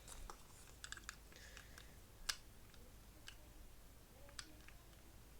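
Faint, scattered clicks and taps of small plastic toy parts being handled and fitted together, with one sharper tick about two seconds in.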